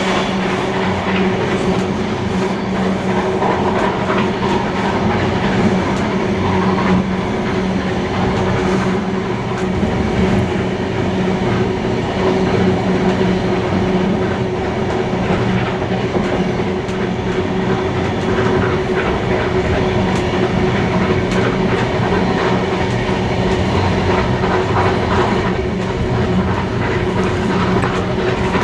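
Steam-hauled passenger train running, its wheels clacking over the rail joints in a steady, unbroken din.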